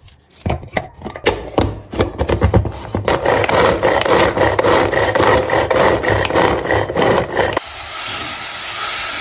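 A knife cutting an onion into a plastic bowl with scattered clicks, then a hand-operated mini chopper dicing the onion with fast rasping, clicking strokes for about four seconds. Near the end it switches to chopped onion sizzling steadily in a pot.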